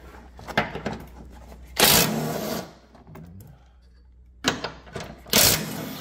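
Cordless impact gun hammering in two short bursts, about two seconds in and again near the end, as it backs out the subframe bracket bolts. Light metal clicks from the socket and bolts come between the bursts.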